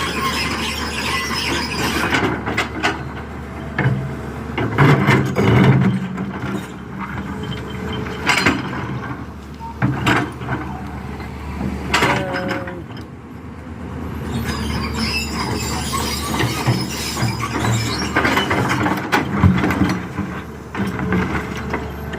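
Hyundai Robex 220-7 excavator at work. Its engine runs steadily beneath repeated metal squeals and clanks, loudest around four to six seconds in and again near the end.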